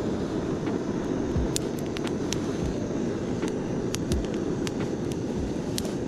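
Iwatani cassette gas torch burner blowing steadily into kindling in a small fire pit, with sharp crackles from the burning twigs scattered through it.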